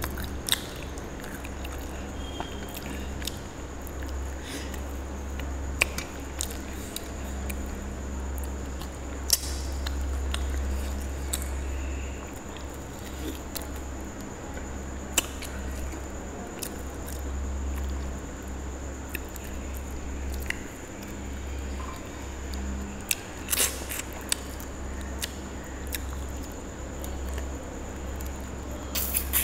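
Close-up eating sounds: chewing, wet mouth squishes and lip smacks as pieces of mutton curry are bitten and eaten by hand, with scattered sharp mouth clicks over a steady low hum.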